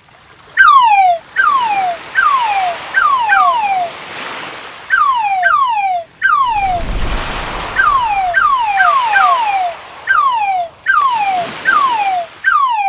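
Cartoon crab sound effect: short falling whistle-like chirps, repeated over and over, singly or in quick pairs. Under them is a steady wash of surf that swells and fades several times.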